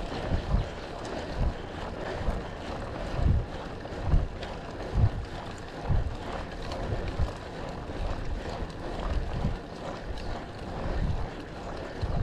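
Wind buffeting the microphone on a road bike ride, with irregular low thumps every second or so over a steady hiss.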